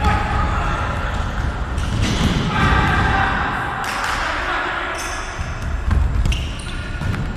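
Football match play: players shouting to each other, with thuds of the ball being kicked over a low rumble.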